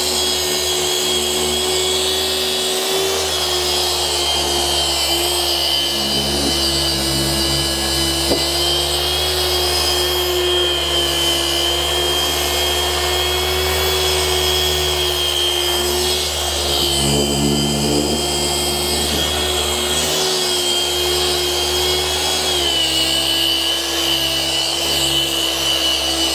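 Electric rotary polisher running steadily against wet-sanded paint, its motor whine shifting slightly in speed a few times and stepping down a little near the end, as it cuts sanding marks out with compound.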